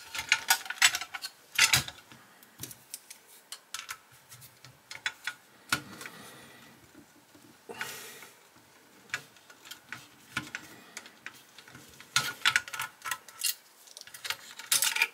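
Small sharp clicks and taps of plastic parts against a diecast metal model car body as hands work the plastic interior and dashboard loose from the shell, in clusters near the start and again near the end.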